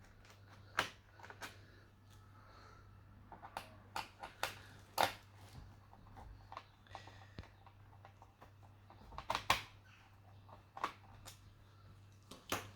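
Irregular sharp plastic clicks and snaps from hand work on an HP 255 G5 laptop, such as tools and clips on its case, with the loudest snaps about a second in, around five seconds in, and around nine and a half seconds in.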